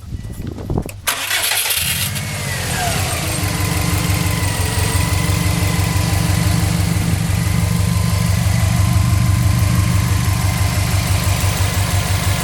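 2005 Subaru WRX's turbocharged flat-four engine is started: a few light clicks, a brief crank, and it catches about two seconds in. A whine falls in pitch and then holds steady as the engine settles into a steady idle, the engine the owner has posted for a ticking, knocking noise.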